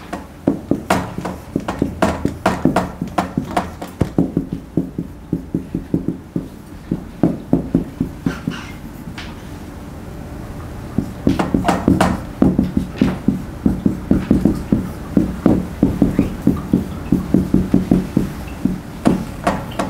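Dry-erase marker squeaking and scratching on a whiteboard in quick short strokes as Chinese characters are written, in clusters of several strokes a second with brief pauses between characters.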